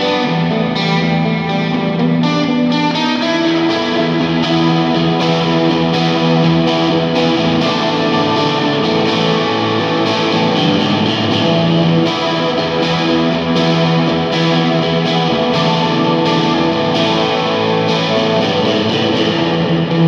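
Electric guitar played live as an instrumental, long sustained notes ringing over a steady low note.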